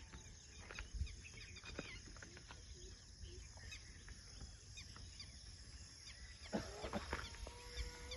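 Birds chirping in many short calls over a steady high insect hiss and a low wind rumble. A faint steady hum comes in near the end.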